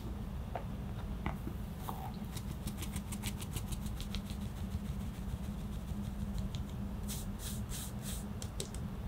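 Flour being sifted through a fine-mesh metal sieve, the sieve shaken and tapped in a rapid run of short, high, scratchy strokes several times a second, starting about two seconds in and heaviest near the end. A steady low hum lies underneath.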